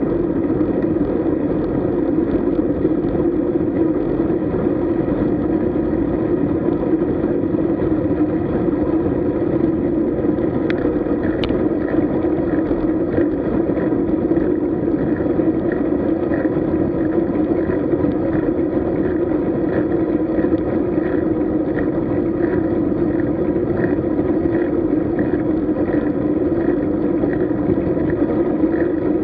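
Steady wind and road noise on the microphone of a camera riding along on a road bike, with a faint regular ticking from about a third of the way in.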